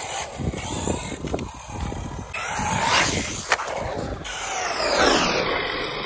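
Arrma Typhon 6S brushless RC buggy driven hard over an asphalt pump track: a motor whine that rises and falls with the throttle over tyre noise and short knocks from the bumps, with a steep drop in the whine's pitch about five seconds in.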